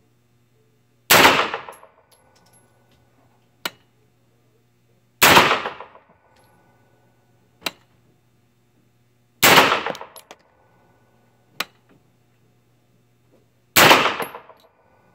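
Four single shots from a 9mm AR pistol, fired slowly about four seconds apart, each ringing on in the indoor range. Fainter, shorter sharp cracks fall between the shots.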